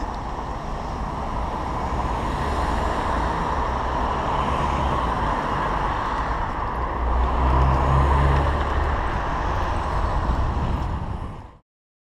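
Road traffic heard from a moving bicycle, with a steady low wind rumble on the microphone. The rumble is heavier about seven to nine seconds in, and the sound fades out just before the end.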